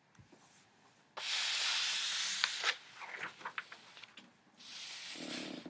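Paper index cards being handled and slid across carpet: two stretches of scraping, rustling paper, with a few light ticks in between.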